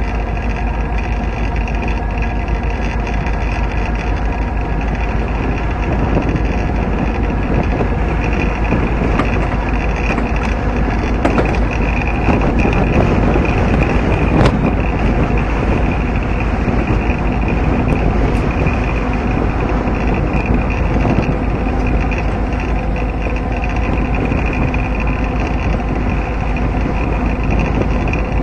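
Alaska Railroad diesel locomotive under way: a steady engine drone mixed with the rumble of wheels rolling on the rails, heard from the front of the locomotive.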